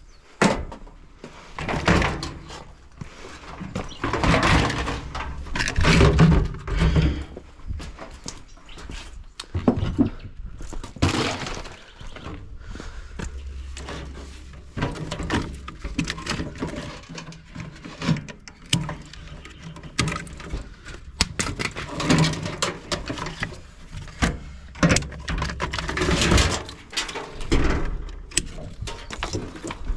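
Irregular knocks, clunks and scraping as metal and plastic washing-machine parts are handled and worked on with hand tools during teardown for scrap.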